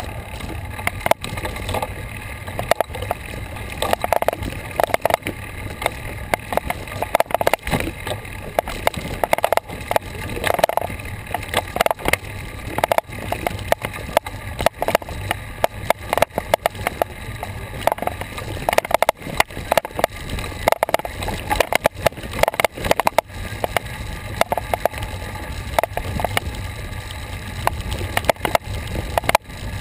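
Bicycle ride noise on a dirt trail, picked up by a bike-mounted action camera: a steady rumble with frequent irregular rattling clicks and knocks as the bike rolls over the rough surface.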